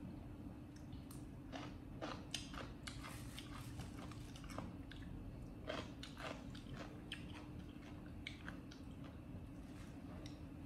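A monkey biting and chewing crunchy food, with irregular crunches and small clicks.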